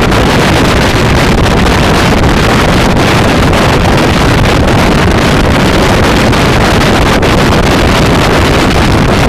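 Loud, steady wind noise rushing over the microphone of a Kymco Xciting 400i maxi-scooter riding at speed. It masks the engine.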